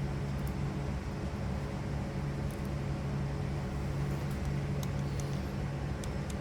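Steady low background hum, with a few faint light clicks from small parts being handled.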